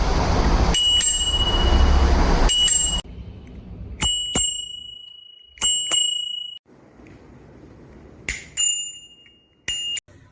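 Alloy bicycle bell rung repeatedly: two dings under a loud rustle in the first three seconds, then four quick ding-ding pairs, each ringing out and fading.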